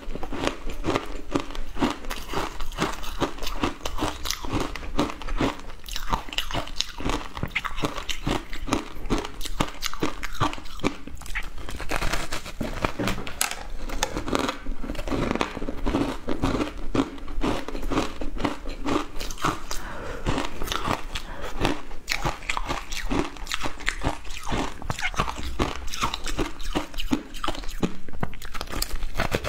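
Crunching and chewing of a block of compressed shaved ice coated in milk powder: a dense run of crisp cracks and crackles as the ice breaks between the teeth, many to the second.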